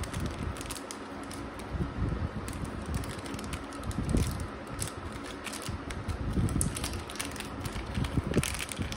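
A clear plastic packet of rubber gaskets crinkling and crackling as it is handled, with many small sharp clicks scattered through, over a steady low background rumble.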